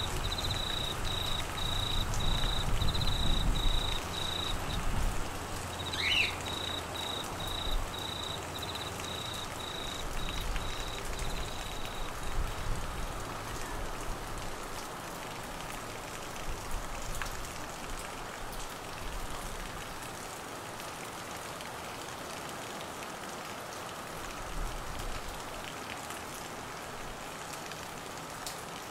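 Steady rain falling, with a cricket chirping in a regular series of high pulses, about two a second, that stops about twelve seconds in. A short sweeping chirp about six seconds in, and a low rumble in the first few seconds.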